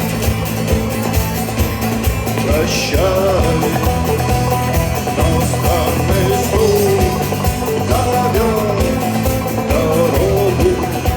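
Rock music: a band playing a passage without sung words, a wavering lead melody over a steady beat and bass.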